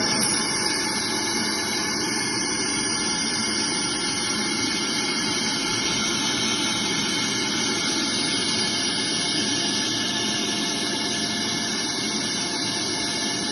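Dental vacuum-forming machine's motor running steadily with a thin high whine over its rushing noise, drawing a heated plastic sheet down over a dental model to form a tray.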